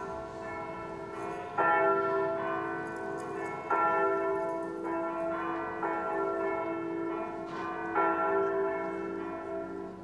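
Church bell struck several times, roughly every two seconds, each stroke ringing on into the next.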